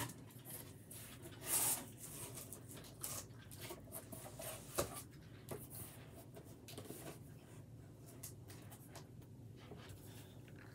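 Quiet rustling and scraping of a cardboard shipping box and the boxed action figures inside it being handled and shifted into place. A louder brushing sound comes about a second and a half in, and a few soft knocks follow.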